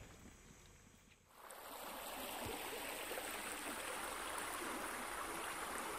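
Steady rush of flowing river water, coming in about a second and a half in after a brief near silence.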